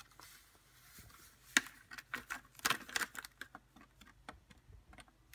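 A plastic single-serve protein powder sachet crinkling and rustling in the hand as the powder is shaken out of it, with a run of sharp crackles between about one and a half and three seconds in.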